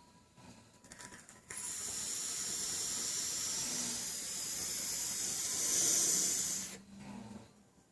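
A person snoring: one long, hissing, rattly breath that starts suddenly, swells near the end and then stops.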